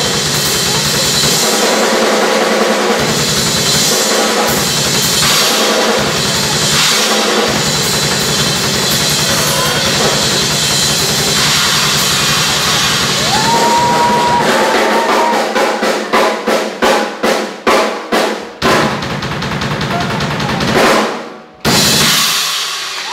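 Acoustic drum kit solo: fast, dense playing with rapid bass drum under snare and cymbals. About fifteen seconds in it breaks into a run of separate heavy hits that come closer and closer together, then cymbals crash and ring, with a final crash near the end.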